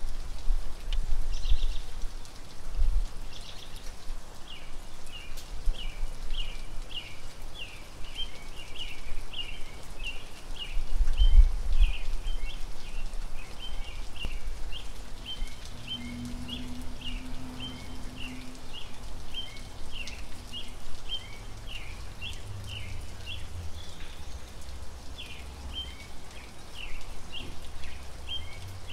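Outdoor ambience after rain: a small bird chirps over and over, about three chirps a second, pausing briefly near the end before starting again. Water drips lightly, over a low, uneven rumble.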